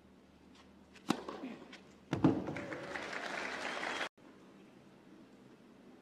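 A tennis ball struck once on the serve, then about a second later a crowd applauding, which breaks off suddenly about four seconds in.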